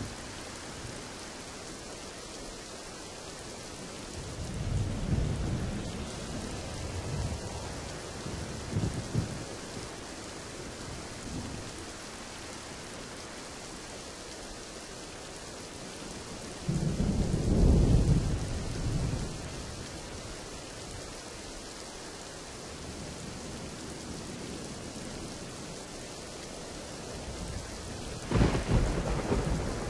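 Steady heavy rain with rolls of thunder rumbling now and then. A loud thunder peal starts suddenly a little past halfway and rolls for about three seconds, and another begins near the end.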